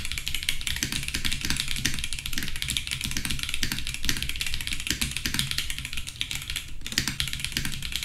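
Fast, continuous typing on an Akko 5075B Plus mechanical keyboard: a rapid, unbroken patter of keystrokes, with a very short pause about seven seconds in.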